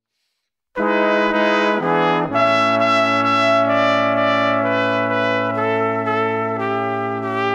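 Instrumental background music coming in suddenly under a second in after near silence: a few short notes, then long held chords.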